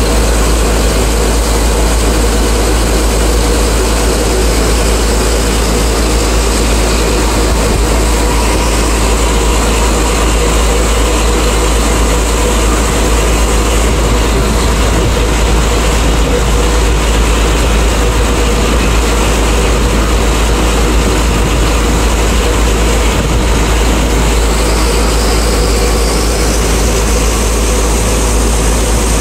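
A big river boat's engine running steadily and loudly under way, a deep even drone, with water rushing along the hull.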